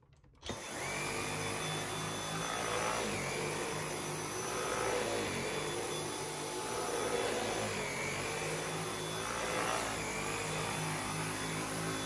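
Dyson V8 cordless stick vacuum switching on about half a second in as its trigger is pressed, then running steadily while its motorised brush head is pushed back and forth over carpet, the sound swelling and easing every couple of seconds with the strokes.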